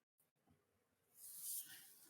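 Near silence: room tone, with one faint soft hiss a little past halfway.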